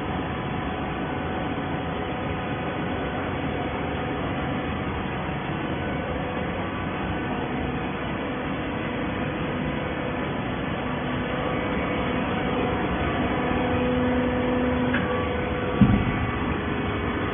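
Waste paper baler machine running: a steady mechanical hum with several tones, one growing stronger through the middle, and a single sharp clunk near the end.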